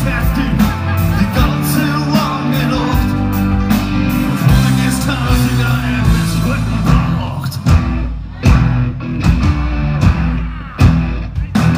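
Live rock band playing electric guitar, bass guitar, keyboards and drums, with a few hard drum hits in the second half.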